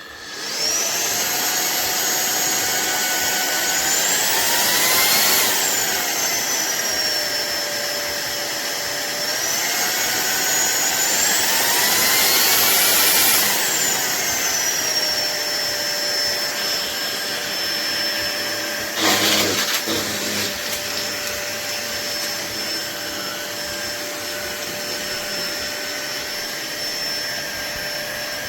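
Cordless stick vacuum cleaner's motor starting up with a high whine, its pitch rising and falling twice as the motor speeds up and slows down, then settling to a steady lower pitch. A brief burst of noise about two-thirds of the way through.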